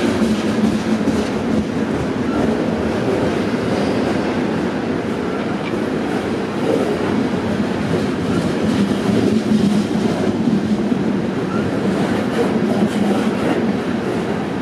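Freight cars of a long mixed freight train rolling slowly past at just above walking speed: a steady rumble of steel wheels on the rails, with scattered clicks.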